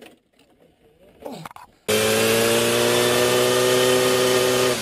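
After a brief voice sound, a motorcycle engine at steady revs comes in abruptly about two seconds in. It is loud and close, over a steady hiss of wind and road noise.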